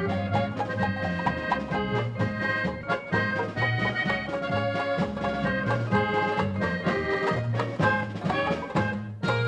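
Cleveland-style polka band playing an instrumental passage: accordion lead over banjo, drum kit and a steady bass beat.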